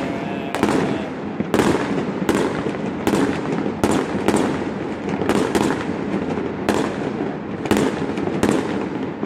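Fireworks display: aerial shells bursting in quick succession, about two sharp bangs a second, over a steady rumble from the barrage.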